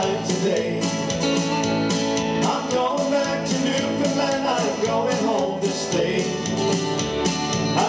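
Live country-folk song: two guitars strumming steadily while a man sings.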